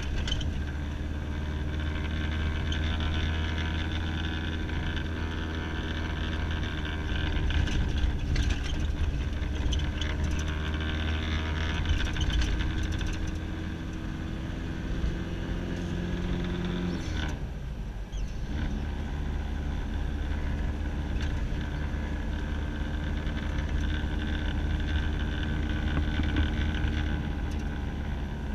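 A vehicle's engine and tyre noise, heard from inside the cabin while driving. The engine note climbs slowly, drops away for a moment about two-thirds of the way through, then settles back to a steady run.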